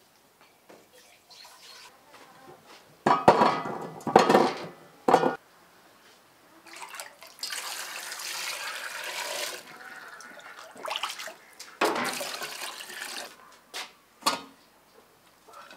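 Whole beetroots dropped into an enamel pot with a few loud clunks, then water running into the pot for about two seconds. More handling clanks from the pot follow near the end.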